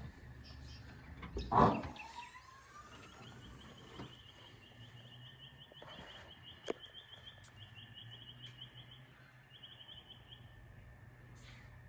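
A bird chirping in a long, rapid run of evenly repeated high notes. A loud, short sound comes about a second and a half in.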